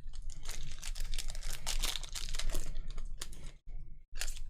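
Trading card pack and cards being handled: a dense crackle of wrapper crinkling and cards clicking and sliding for about three and a half seconds, then a short burst of the same near the end.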